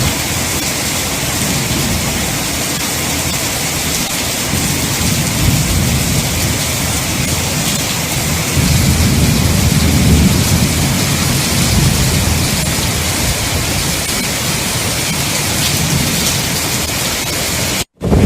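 Heavy monsoon rain pouring down steadily, with low rumbles of thunder swelling underneath. The sound breaks off for an instant near the end.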